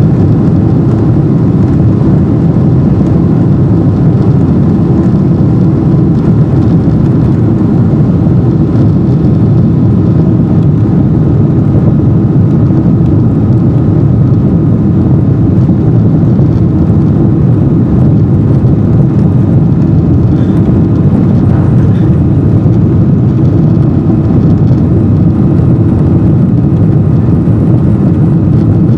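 Boeing 777-200 jet engines at take-off thrust, heard from inside the cabin: a loud, steady deep rumble with a faint steady whine above it, carrying through the end of the take-off run and into the initial climb.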